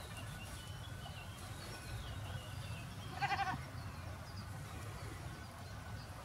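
A goat gives a single short, high-pitched bleat about three seconds in, over faint bird chirps.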